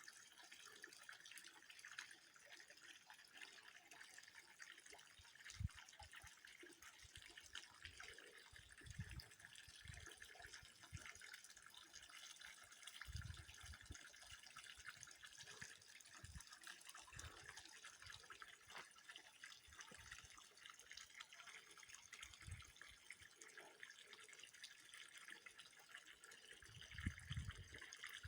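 Faint steady trickle of water with many small drips and ticks, and a few short low thumps now and then.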